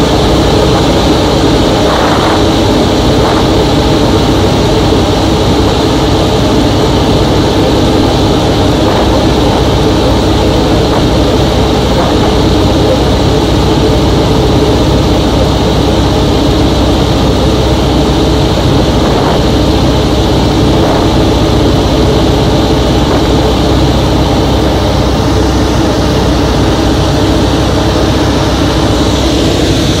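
The Nanchang CJ-6 trainer's nine-cylinder radial engine and propeller droning steadily at cruise power, heard loudly from inside the cockpit.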